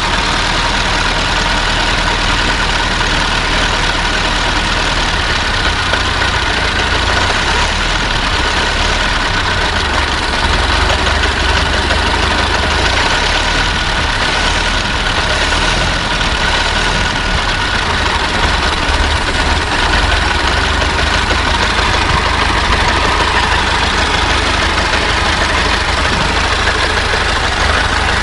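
Old car's engine running steadily at a constant pace, with a low rumble and no revving.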